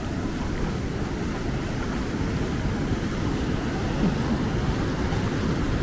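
Heavy storm surf breaking and washing up the beach as a steady rush, with a low rumble of wind on the microphone.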